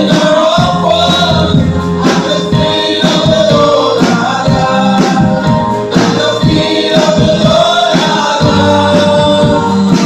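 Gospel vocal group of men and women singing in harmony into microphones, backed by a drum kit and keyboard, with sustained low keyboard notes and drum hits under the voices.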